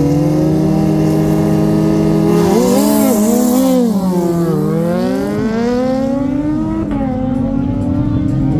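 Several high-performance motorcycle engines run at once at a steady pitch. About three seconds in they rev in quick rising and falling swings, and then the pitch climbs again toward the end.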